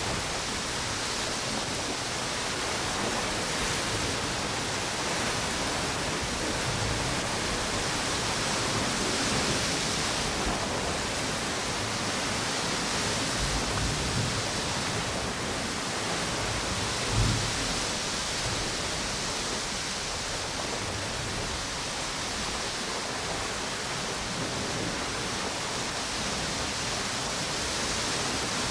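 Steady rush of storm wind and ocean surf on a tropical beach, with wind through palm trees; the hiss swells and eases slowly, and a few low gusty thumps hit the microphone.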